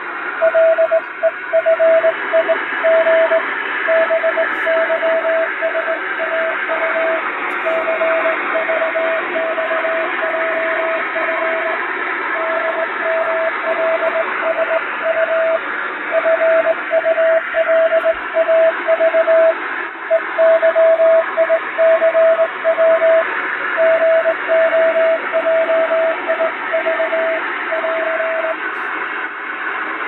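Morse code hand-sent on a straight key: a single steady beep tone keyed into dots and dashes, spelling five-letter practice code groups. It sits under added shortwave radio static and fading, and the keying stops shortly before the end, leaving only the hiss.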